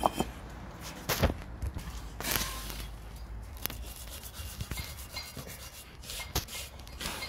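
Clay facing bricks scraping and knocking against one another as they are pushed and slid by hand across a stacked pallet: a gritty rubbing with a few sharp knocks.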